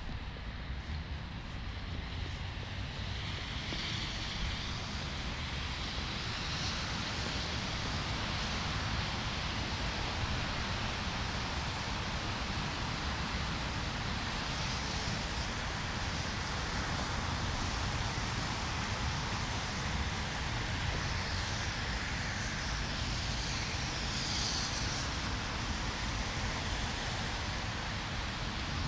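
Blizzard wind and city traffic on a snowy street: a steady rushing noise with low rumble, and now and then the louder swish of a passing vehicle.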